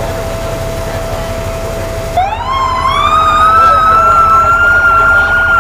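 Fire engine siren starting up about two seconds in, rising in pitch and then holding high, over a steady tone and a low rumble of idling engines.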